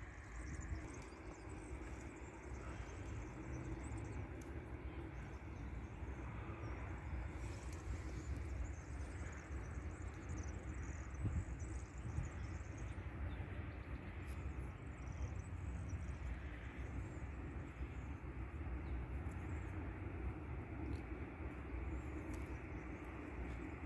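Steady low outdoor background rumble, with faint high chirps and ticks now and then.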